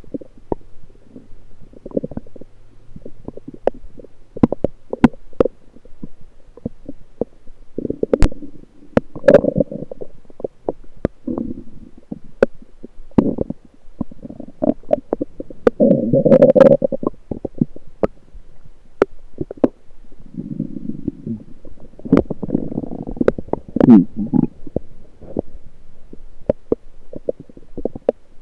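Lower intestinal gurgling heard through an electronic stethoscope: a string of sharp pops and clicks with several longer bubbling gurgles, the loudest just past halfway and another run near the end.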